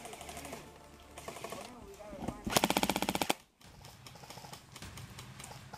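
An airsoft electric gun fires one full-auto burst of about a second, rapid even cracks at roughly twenty a second, starting a little past the middle.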